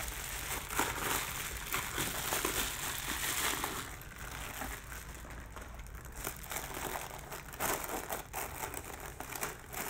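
Bubble wrap and then a thin plastic bag crinkling and rustling as they are pulled off a camera lens by hand, busiest in the first few seconds and then in sparser crackles.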